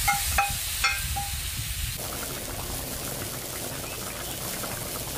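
Pork meatballs dropped one after another into boiling tomato broth, four short plops in the first second and a half, then the broth bubbling steadily at the boil.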